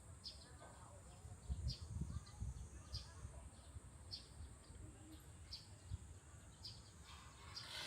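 A bird repeating a short, high chirp about every half second to second, over a faint steady high-pitched hiss, with low rumbles about two seconds in.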